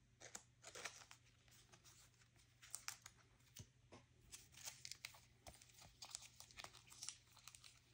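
Faint, scattered rustling and light clicks of trading cards and plastic card sleeves being handled and sorted.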